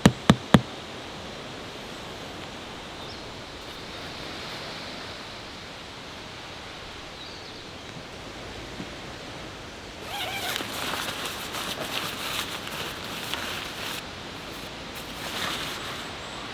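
Three quick sharp strikes at the very start, like tent pegs being hammered in, over the steady rush of a stream. Bursts of rustling about ten seconds in, and again briefly near the end.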